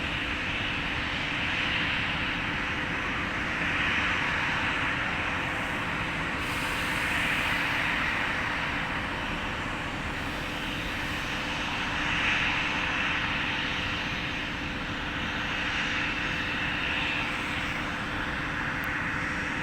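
Jet airliner engines on landing approach: a steady rushing drone with a low hum, swelling and easing every few seconds.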